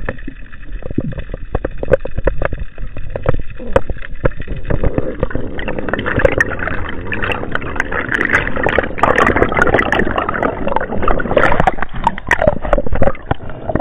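Muffled underwater noise picked up by a camera in its waterproof housing: water rushing and gurgling over the housing, with many short knocks and clicks. The noise swells about five seconds in and eases off near the end.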